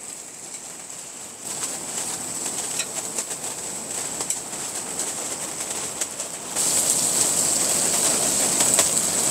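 Strong gusty wind blowing against the tent, a rushing noise that swells about a second and a half in and grows clearly louder about two-thirds of the way through, with a few light clicks.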